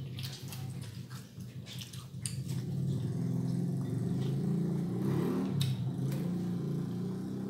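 Scattered soft clicks and smacks of people eating with their hands and chewing, over a steady low hum.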